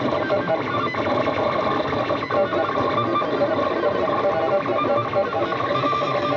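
Stepper motors of a homemade RepStrap 3D printer running a print at 200 mm/s, giving a string of quickly shifting tones as the axes move back and forth.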